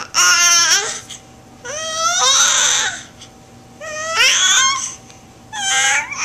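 A four-month-old baby babbling in four loud, high-pitched coos and squeals, each about a second long, with pitch sliding up and down.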